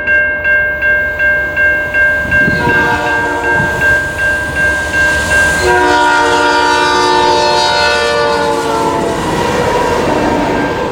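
GE Dash 9 locomotive's multi-chime air horn sounding a long blast. It comes in a couple of seconds in, is loudest in the middle and fades near the end. Underneath it, a level-crossing bell rings about twice a second.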